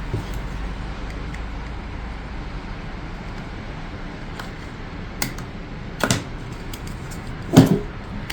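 Plastic toy track pieces and toy cars being handled: a few sharp clacks over a steady hiss, the loudest near the end.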